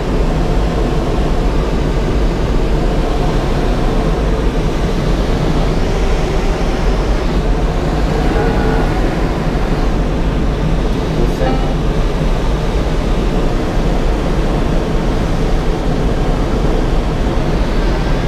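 Steady, deep rush of air flowing over a glider's canopy in unpowered flight, heard from inside the cockpit.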